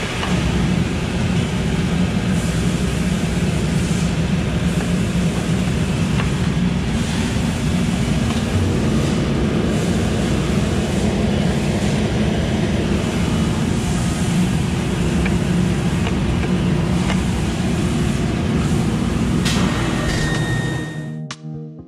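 Commercial laundry machinery running: a loud, steady low hum under a dense mechanical rush, with a few faint clicks. It cuts off sharply about a second before the end, and music begins.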